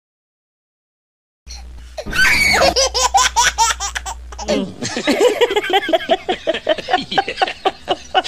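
Dead silence for about a second and a half, then human laughter in quick, repeated ha-ha bursts that carry on to the end.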